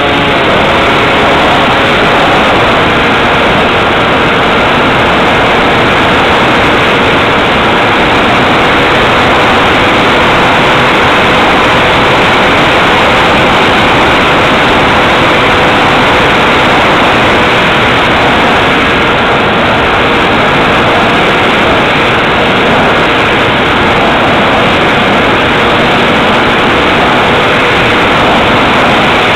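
Multiplex Xeno RC flying wing in flight, heard from its onboard camera: the electric motor and propeller with rushing air, a loud steady noise with a faint steady whine running through it.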